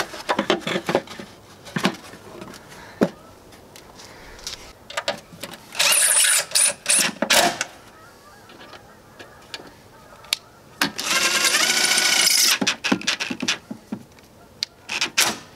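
Clicks and knocks of a plastic tail-light housing being seated by hand against a Jeep's body, then a cordless power driver whirring for about a second and a half near the end as it drives in the tail-light screws.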